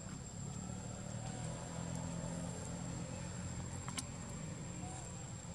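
Low engine hum of a motor vehicle, swelling in the middle and easing off, under a thin steady high whine. A single sharp click about four seconds in.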